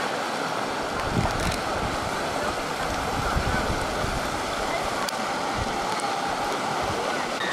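Shallow river rushing over rocks and small rapids: a steady hiss of flowing water.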